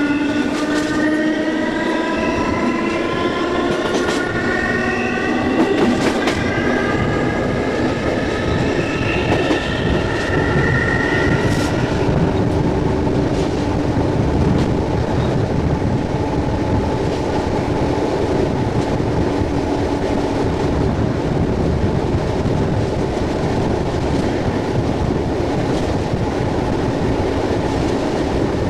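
SNCB AM80 electric multiple unit accelerating: the traction motors' whine climbs steadily in pitch, then cuts off about twelve seconds in, leaving the steady rumble of the train running along the track.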